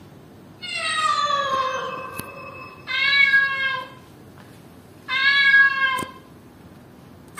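A white long-haired Persian-Egyptian mix cat meowing three times. The first meow is long and falls in pitch; the next two are shorter and steadier, about a second each.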